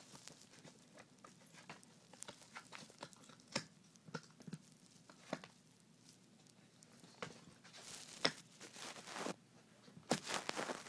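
Ten-week-old Thai Ridgeback puppy chewing and tearing at a cardboard box lid: irregular crackles, crunches and ripping of cardboard, with louder bouts of tearing about eight seconds in and again near the end.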